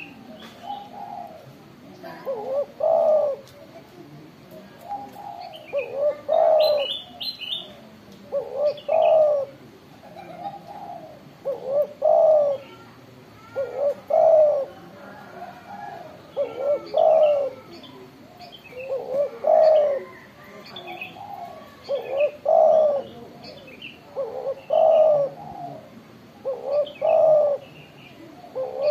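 Spotted dove cooing its song over and over, a low phrase repeating about every two and a half to three seconds.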